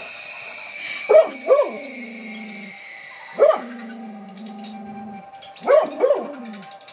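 Dog barking in short loud barks at a strange figure: two quick barks, a single one, then two more, with a lower drawn-out sound trailing after the first barks.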